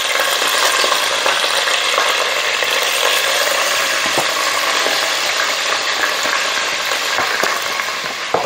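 Fresh curry leaves and whole spices frying in hot oil: a steady sizzle with occasional sharp pops as the oil spits.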